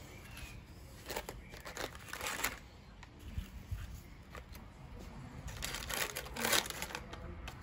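Brown paper bag crinkling in several short rustles as fried food pieces are dropped into it and the bag is handled. The loudest rustles come about six seconds in.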